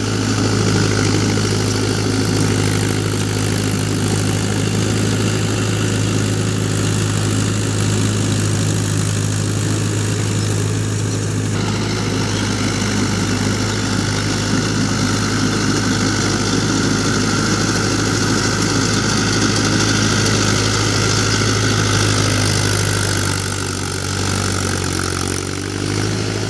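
Mahindra Yuvo 575 tractor's three-cylinder, 46 hp diesel engine running steadily under load with a strong low hum while it drives a rotary tiller through wet paddy mud. The sound changes abruptly about eleven seconds in and eases slightly near the end.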